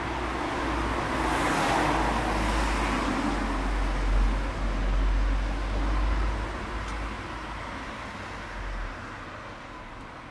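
Road traffic: a car driving past on the street, its tyre and engine noise swelling over the first few seconds and fading away in the second half, over a low rumble.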